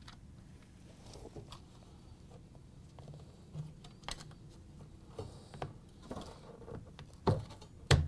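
Faint, scattered light clicks and taps of metal spring clips and a plastic washer drain pump being handled, with two sharper clicks near the end as the clips snap down over the pump.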